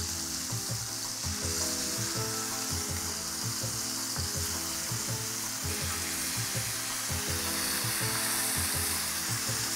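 Chicken breasts sizzling as they sear in a hot cast-iron skillet, a steady frying hiss, with background music playing underneath at a steady beat.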